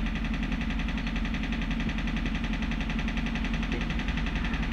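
A steady low engine drone, unbroken and even in level.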